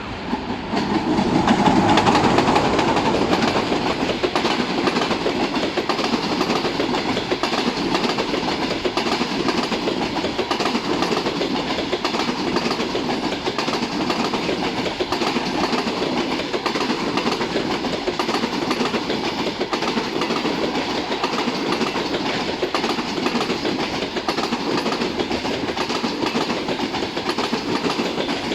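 Passenger train hauled by an EP20 electric locomotive passing by. It is loudest about two seconds in as the locomotive goes past, then the coaches roll by with a steady noise of wheels on the rails.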